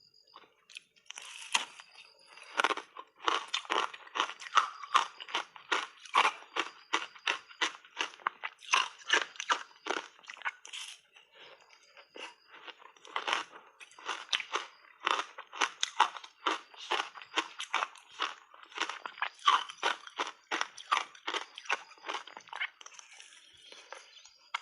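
Ice cubes frozen with matcha tea powder being bitten and chewed, a rapid run of sharp crunches several times a second, easing briefly about halfway through.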